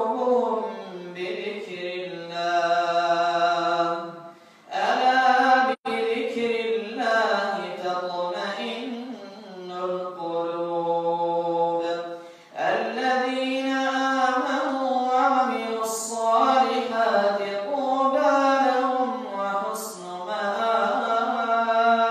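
An imam reciting the Quran aloud while leading prayer: one male voice chanting in long, melodic held phrases with slow rises and falls in pitch, with short pauses about four and twelve seconds in.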